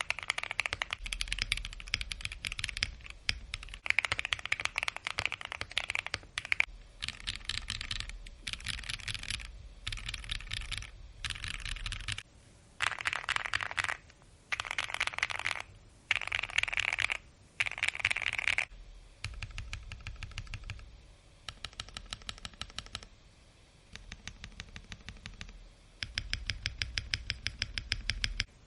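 Key presses on a Bakeneko65 custom mechanical keyboard with lubed KTT Mint switches and PBT keycaps. Fast typing gives way about seven seconds in to short separate runs of quick clicks across the home row. From about two-thirds of the way in come slower, evenly spaced, deeper presses of the larger stabilized keys.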